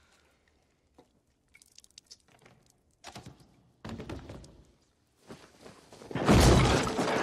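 Crusty bread being torn apart by hand, the crust crackling in a few short bursts. About six seconds in comes a loud, heavy thud, followed by a loud, continuing noisy din.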